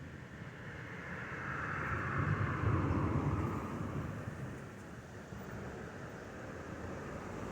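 A vehicle passing by: a rushing noise swells to a peak about three seconds in, then fades, dropping slightly in pitch as it goes.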